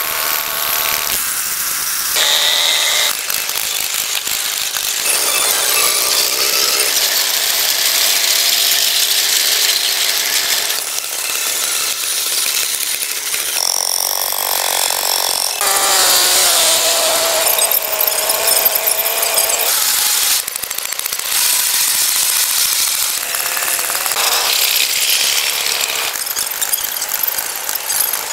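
Vintage tractor engines running with a rapid, rattling clatter, the sound changing abruptly every few seconds from one machine to another. The sound is thin and hissy, with little bass.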